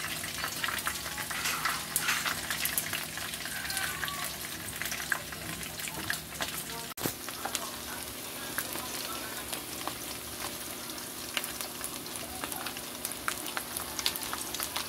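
Unbreaded chicken pieces shallow-frying in hot oil in a wok: a steady sizzle with a dense, constant crackle of small pops, briefly cut off about halfway through.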